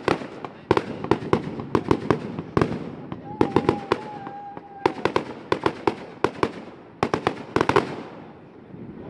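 Aerial firework shells bursting in quick, irregular succession, several sharp bangs a second, easing off near the end.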